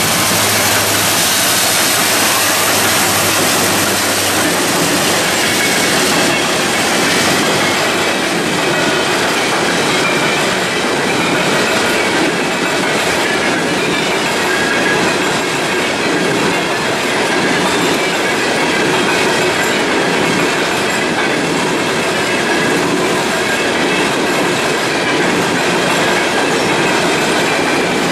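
Norfolk Southern freight train passing close by: the diesel locomotives' engine hum fades over the first few seconds, then a long string of loaded coal hoppers rolls past with a steady, loud rumble and clatter of steel wheels on the rails, and a few faint high squealing tones.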